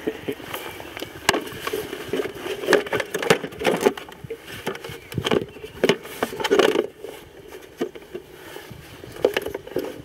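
Irregular knocks, clicks and scrapes of hands working inside a fridge's plastic liner, setting an airbag module and its trigger wires in place.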